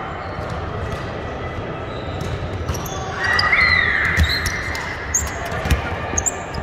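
Basketball game sounds on an indoor court: a loud high squeal about three seconds in, the ball thumping on the floor twice, and short high squeaks of sneakers over a steady background din.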